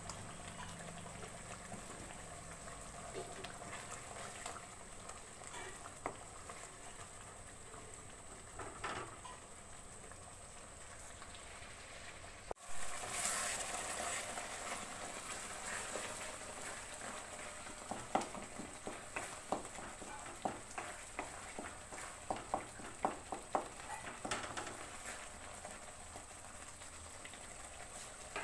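Masala curry gravy with freshly added tomato bubbling and sizzling in a metal kadai while a wooden spatula stirs it. In the second half, the spatula knocks against the pan in a run of sharp taps, a few a second.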